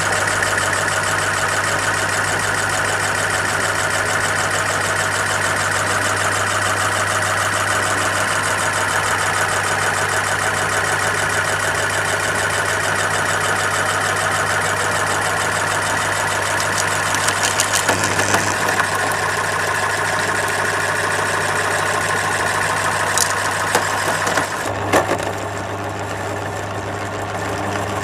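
Electric meat grinder running with a steady motor hum while grinding hard watermelon candy, with a cluster of sharp cracks about two-thirds of the way through and another crack just before the running sound drops a little in level near the end.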